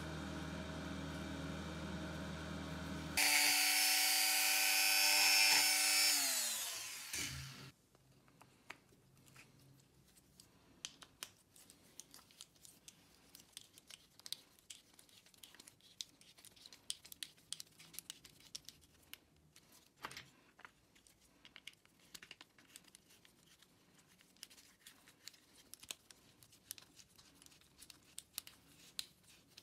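A power tool runs steadily, then a louder, higher-pitched one that winds down and stops about seven seconds in. After that come faint, scattered clicks and clinks of loose metal screws, bolts and washers being picked through by hand.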